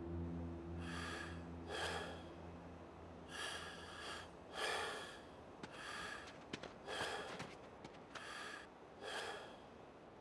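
A person breathing in short, quick breaths, roughly one a second, with a few faint clicks near the middle. A low droning music tone fades out over the first few seconds.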